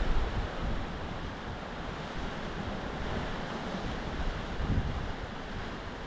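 Sea surf washing and breaking on a rocky shore as a steady wash of noise, with wind rumbling on the microphone, strongest near the start.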